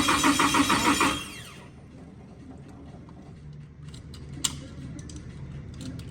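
Nissan S14 Silvia's engine being cranked over by the starter motor in a rapid, even rhythm without firing. The cranking cuts off about a second in, with a short falling whine as the starter spins down. A few faint sharp clicks follow.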